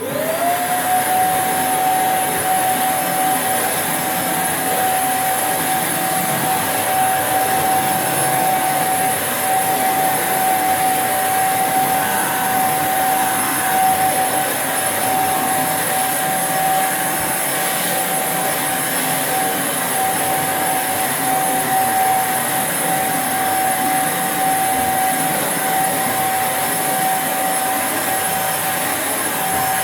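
Vacuum cleaner switched on, its motor spinning up in about half a second to a steady high whine over a rushing hiss of suction, then running steadily.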